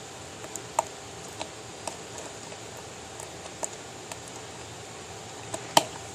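Broken speaker hooked to a stereo with the volume up, giving out almost nothing but a steady hiss and scattered crackling clicks and pops, the loudest near the end.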